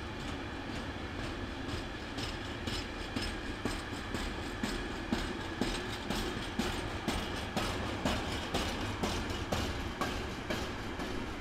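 A train rolling along steadily, its wheels clicking over the rail joints about twice a second.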